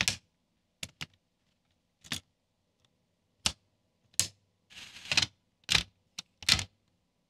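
Lego Technic plastic parts clicking and snapping together as frames and pins are pressed into place: about ten separate sharp clicks, with a quick run of clicks about five seconds in.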